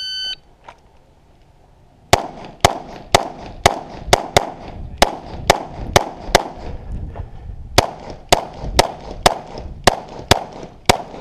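Electronic shot-timer beep, then about two seconds later a string of pistol shots fired about two a second, with a pause of over a second in the middle before the shooting resumes.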